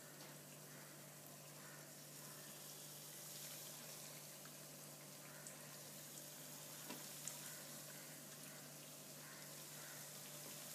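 Faint, steady sizzling of breadcrumb-coated tapioca cutlets frying in hot oil in a pan.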